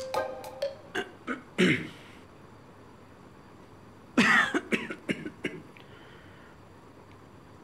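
A man coughing and clearing his throat: a short bout about a second and a half in, and a louder one at about four seconds, trailing off in a few short coughs. The tail of background music fades out in the first second.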